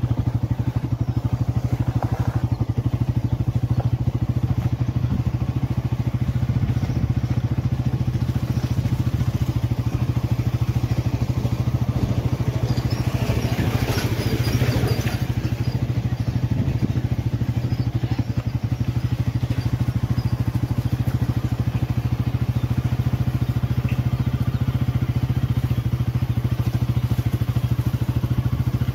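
Engine of a moving vehicle running steadily at cruising speed, with a brief rush of noise about halfway through.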